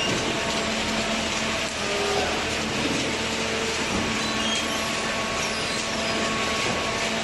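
Hydraulic baler running: a steady mechanical noise with a constant low hum.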